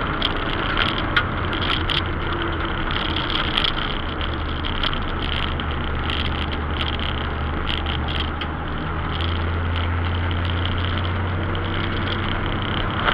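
Holden Kingswood's engine running at low road speed, heard from inside the cabin: a steady low drone that steps up slightly in pitch and level about nine seconds in, with light ticks and rattles scattered throughout.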